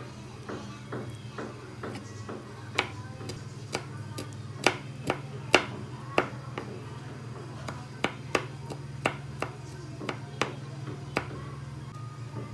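Chef's knife slicing and chopping garlic cloves on a bamboo cutting board: a series of sharp, irregular knocks of the blade hitting the board, starting about three seconds in and stopping about eleven seconds in.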